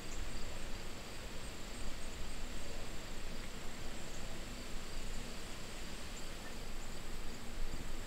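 Insects trilling steadily at a high pitch, over a low outdoor rumble.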